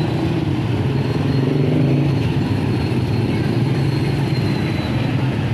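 A motor vehicle engine running at a steady pitch, mixed with road and traffic noise.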